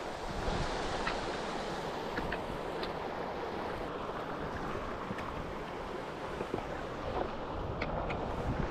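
Steady rush of a mountain gill's running water, mixed with wind buffeting the microphone, with a few faint clicks.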